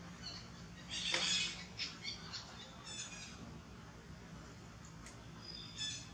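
Intermittent short, high-pitched animal chirps and squeaks, with one sharp falling squeal about a second in.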